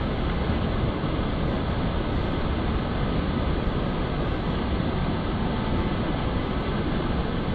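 Fast, shallow mountain river rushing over a rocky bed: a steady, unbroken noise of white water.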